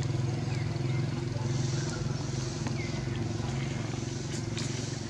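A steady low engine hum, like a motor vehicle idling, with a few faint high chirps over it.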